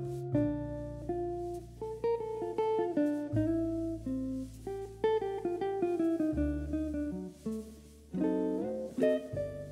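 Background music: a plucked guitar melody over held bass notes that change about every three seconds.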